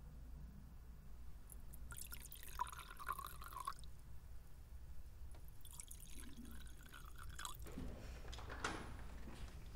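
Liquid poured from a metal jug into two metal goblets, one pour after the other, each lasting under two seconds with a steady filling tone. A few soft knocks follow near the end.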